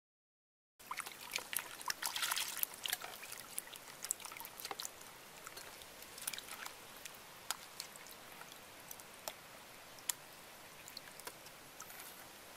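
Water sloshing and splashing in a plastic bowl as pieces of gutted fish are rinsed by hand, starting about a second in, with scattered small sharp clicks.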